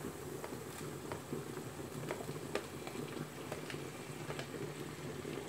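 Onions frying in oil in a pan, a soft steady sizzle with scattered small pops, as sliced tomatoes are tipped in from a tray.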